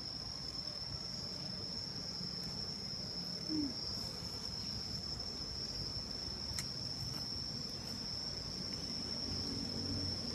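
Steady high-pitched insect chirring, one unbroken tone, over a low background hiss, with a brief low falling hum about three and a half seconds in.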